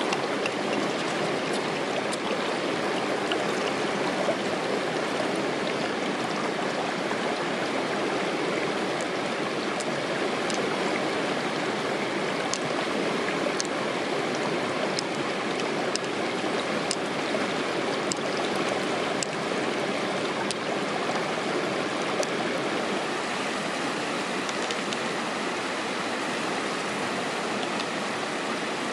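Shallow stream running steadily over stones, with a few faint light clicks now and then from pearls and mussel shell being handled.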